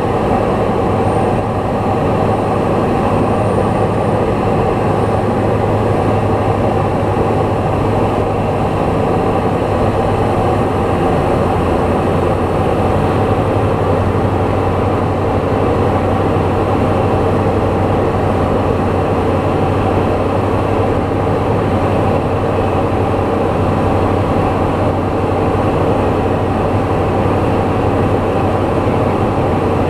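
Light aircraft engine in flight, a steady unbroken drone with a deep hum.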